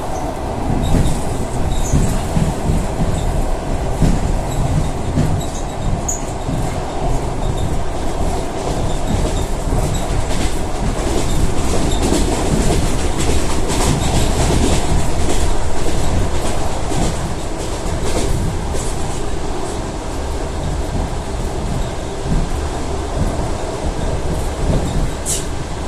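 ED4M electric multiple unit running on the rails: a steady rumble with wheels clicking over rail joints, and a brief high squeal near the end.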